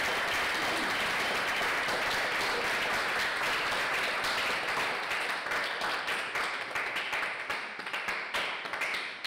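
Audience applauding, steady at first, then thinning into scattered separate claps over the last few seconds.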